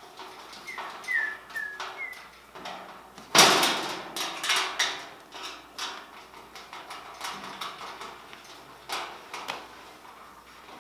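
Parts of an iron bird cage knocking and clanking together while it is being assembled and its screws tightened: a string of knocks and rattles, the loudest clank about three and a half seconds in.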